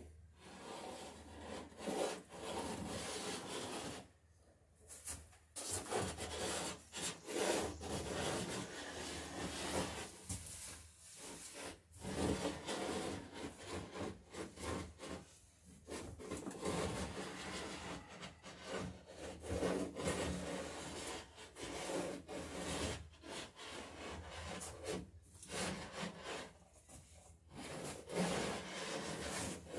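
Hand tool shaving along the edge of a wooden boat plank as it is bevelled, a garboard plank for a dory. Stroke follows stroke in a long run, with a few short breaks.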